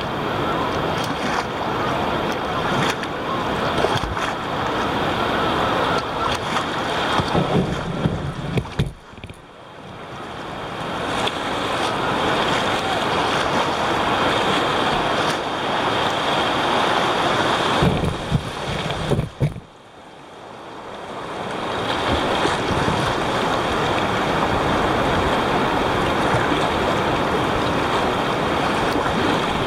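River rapids rushing around a kayak's hull, with wind on the microphone. Twice, about nine and twenty seconds in, the noise drops away sharply and builds back over a couple of seconds.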